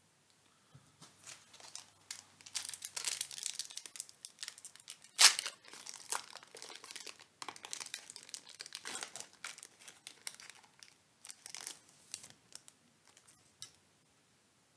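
Foil Pokémon booster pack wrapper crinkling and being torn open by hand, with one sharp, louder crackle about five seconds in.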